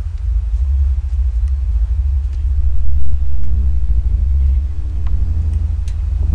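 A loud, deep rumble of the kind posted as the 2012 'strange sounds in the sky', with a moaning, horn-like tone of several pitches rising over it about two and a half seconds in and again near five seconds.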